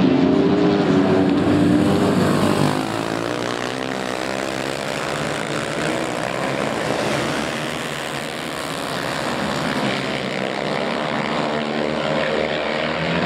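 Dirt track racing motorcycle engines revving hard, their pitch rising and falling as the riders slide through the turns. Loudest for the first few seconds, then a little lower.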